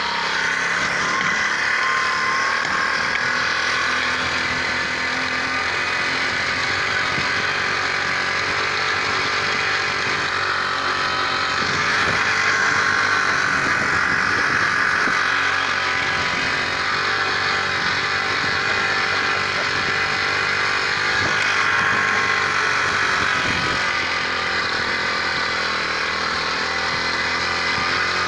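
A 50 cc minibike's small engine running steadily under way, its pitch and loudness swelling slightly about twelve and twenty-two seconds in, over a hiss of tyres on wet grass.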